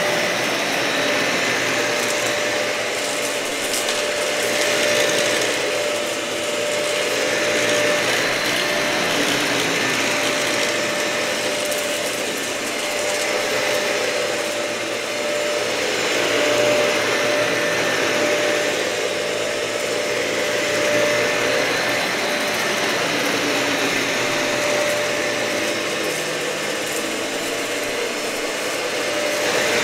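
Dyson vacuum cleaner running over matted carpet: a steady motor whine under a rasping, rattling rush from the brush bar and debris. The sound swells and eases every few seconds.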